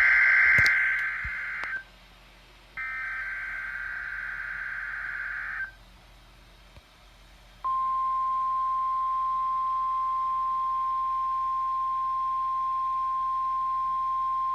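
NOAA Weather Radio test alert: the end of one raspy EAS/SAME digital header burst, then a second burst lasting about three seconds. After a short gap, the steady 1050 Hz weather-radio alert tone starts about eight seconds in and holds.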